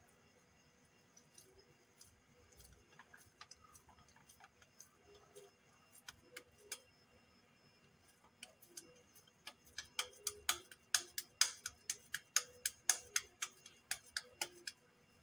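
Hands patting and pressing a ball of raw minced beef into a round kebab between the palms, each pat a sharp, wet-sounding click. A few scattered pats at first, then a quick run of louder ones, about four a second, from about ten seconds in until near the end.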